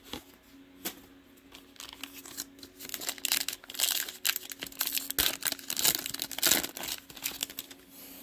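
Plastic trading-card pack wrapper crinkling and tearing as a pack is ripped open, a dense run of crackles building up about three seconds in.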